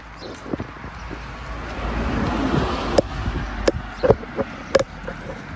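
A car drives past on the street, its tyre and engine noise swelling and fading over a couple of seconds. Several sharp footstep clicks on the paving follow.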